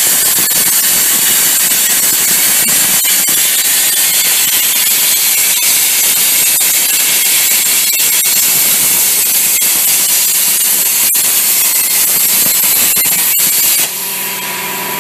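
Plasma torch on a CNC cutting table cutting metal: a loud, steady hiss with occasional sharp crackles. Near the end it drops to a quieter sound with a steady tone.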